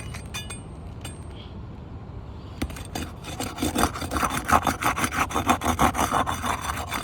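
Asphalt roof shingle being pried up off the shingle beneath, scraping and crackling as its sealant strip is broken, with a rapid rasping run from about three and a half seconds in. The brittle shingle is tearing and shedding granules as it is unsealed.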